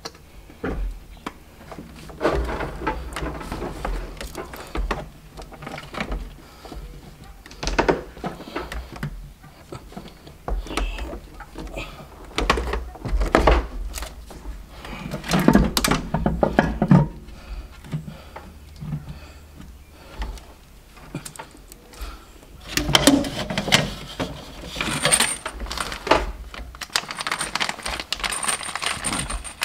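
Irregular metal knocks, clinks and rattles of parts being handled while an aluminum intake manifold, its fuel rail and the wiring connectors around it are fitted on a car engine.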